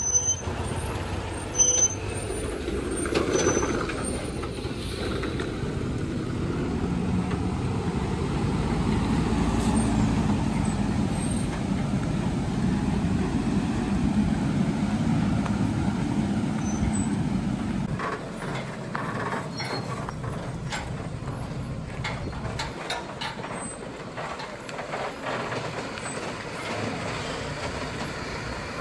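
Diesel engine of a heavily loaded multi-axle lorry labouring at low speed on a steep climb, a steady low drone, with a sharp air-brake hiss about a second and a half in. The drone drops off after about eighteen seconds, leaving a quieter engine sound with scattered clicks as the truck moves away into the bend.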